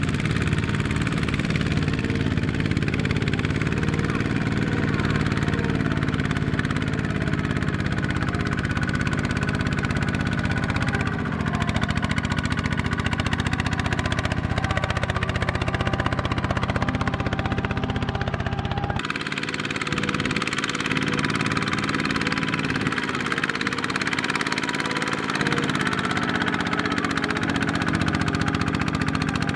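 Single-cylinder diesel engines of Kubota two-wheel walking tractors running steadily under load as they pull trailers of rice sacks over a muddy harvested field. The sound shifts abruptly about two-thirds of the way through, losing much of its deepest rumble.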